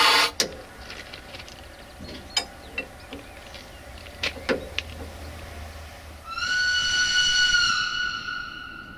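Diesel locomotive horn cutting off just after the start. Scattered sharp clicks follow over a low rumble. About six seconds in the horn sounds again, a single high note held for about two seconds before fading away.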